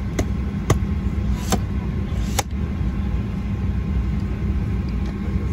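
Four sharp taps in the first two and a half seconds as a hand pats a lowered plastic seatback tray table, over the steady low rumble of a Boeing 737-900ER's passenger cabin.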